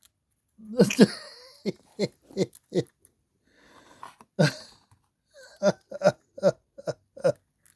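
A voice making a series of about a dozen short, clipped sounds, the loudest about a second in.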